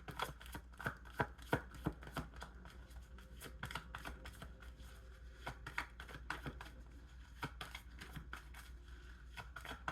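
Tarot cards being shuffled and handled: a run of quick, irregular soft clicks and snaps of card on card, over a low steady hum.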